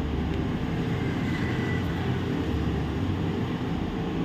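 Steady background hum and hiss, like a room fan or air conditioner running.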